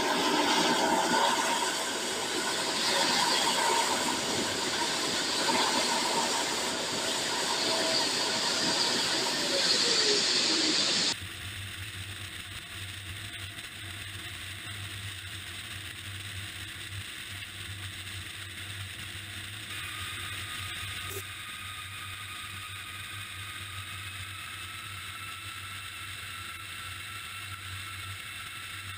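Loud hiss with a steady whine from the hydraulics of an airliner's landing gear being swung up on jacks, with a tone falling in pitch shortly before it cuts off suddenly. It is followed by a quieter, steady rush of airflow with a low hum from beneath an airliner flying with its gear down.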